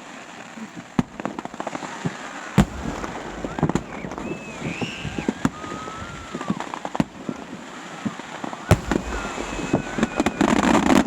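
Fireworks going off: a dense run of sharp bangs and crackling pops, with wavering higher tones in the middle and near the end. The noise thickens and grows louder near the end.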